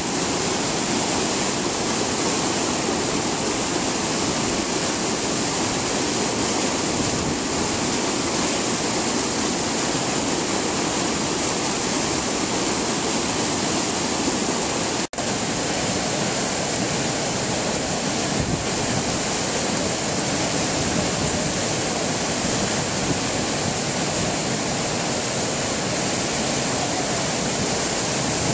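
River water pouring over a low weir and churning in the pool below: a steady, loud rush, with a momentary dropout about halfway through.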